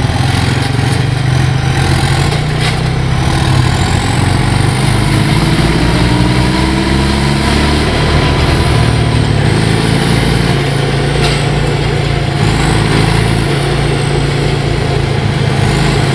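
Deutz 4006 tractor's air-cooled three-cylinder diesel, turbocharged and with a reworked injection pump to about 100 hp, running steadily as the tractor drives along towing a trailer.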